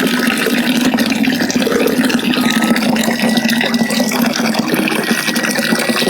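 Water running steadily from a tap, splashing into a sink or basin.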